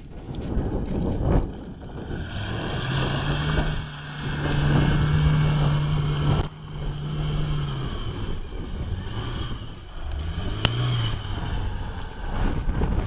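Chevrolet Niva engine revving up under load and holding steady for several seconds, then easing off, with another short rev about ten seconds in.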